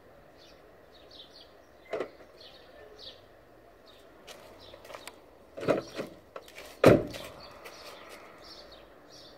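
Renault Mégane III door-lock actuators clunking, worked by a phone remote: a few short, sharp clunks about two, six and seven seconds in, the last the loudest, with lighter clicks between them. Birds chirp in the background.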